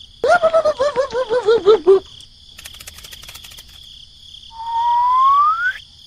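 Cartoon-style sound effects: first a short warbling babble of notes that wobble and step downward in pitch, like a sped-up character voice. About four and a half seconds in comes a smooth rising whistle glide. A steady cricket chirping runs underneath throughout.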